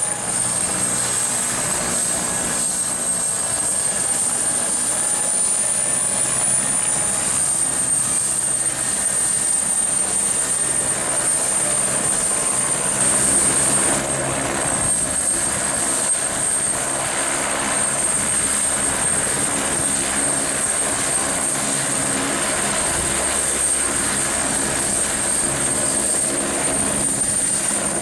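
Eurocopter AS355N Ecureuil helicopter running, its twin Turbomeca Arrius turboshaft engines giving a high turbine whine over the low throb of the rotor. The whine wavers slightly in the first few seconds, then holds steady.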